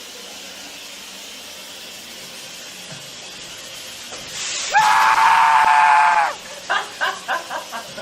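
A steady hiss, then about five seconds in a person screams one loud, held scream lasting about a second and a half. A run of short, quick vocal bursts follows.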